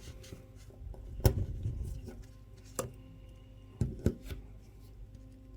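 Sharp clicks and taps of a watch case and strap being handled on a workbench while a new strap is fitted. The loudest comes about a second in, with one more near the middle and a quick pair later on.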